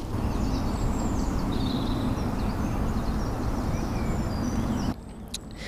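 Small birds singing and chirping over a steady low background rumble; the rumble cuts off suddenly near the end.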